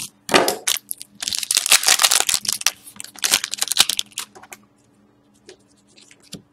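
Foil wrapper of a trading card pack being torn open and crinkled for about four seconds, then only a few faint light ticks.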